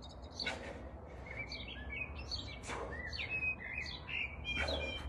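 Small birds chirping and singing in short whistled phrases, with three short puffs of noise about two seconds apart.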